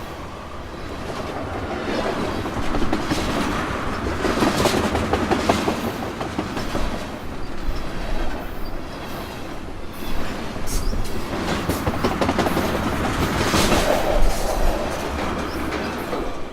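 Freight train cars rolling along the track, with the wheels clicking over rail joints over a steady rumble that swells and eases in waves.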